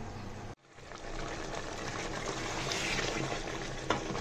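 Beef curry bubbling and frying in an aluminium pot as it is stirred with a wooden spoon, with a knock of the spoon against the pot near the end. The sound cuts out for a moment about half a second in.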